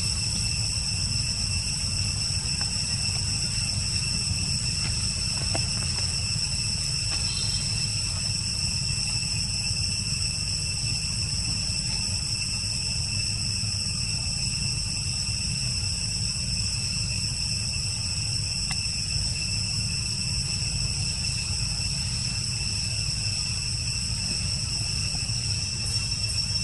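Steady insect chorus: several high, unbroken tones held constant, over a low steady rumble.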